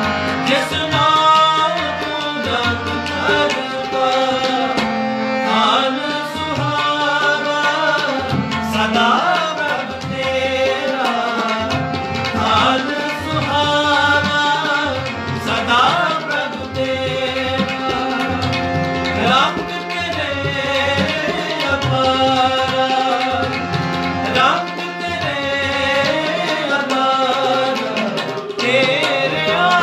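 Sikh kirtan: Crown Flute harmoniums play a melody with a drum accompaniment typical of tabla, while a voice sings in long gliding phrases.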